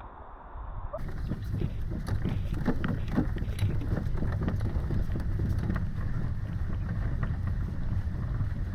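Irregular footsteps and crunching on a portage trail under a steady low rumble of wind and handling noise on the microphone, starting abruptly about a second in.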